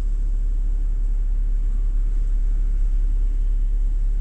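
Steady low rumble with no distinct events, like vehicle or wind noise on a phone microphone.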